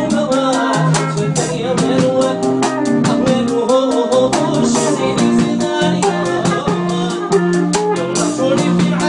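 Live music: a man singing into a microphone over fast, steady percussion and held instrumental notes.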